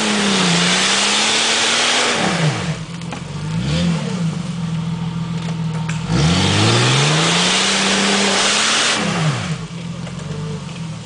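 Jeep Cherokee XJ engine revved hard while climbing a muddy off-road bank. It holds high revs for the first couple of seconds, blips briefly, revs up again for about three seconds from the middle on, then drops back to a lower steady run near the end.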